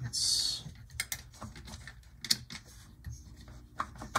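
A short hiss, then light clicks and taps of a hand handling a plastic Roco ICE2 model train on its track, over a faint steady hum from the model's motor running while the train does not move.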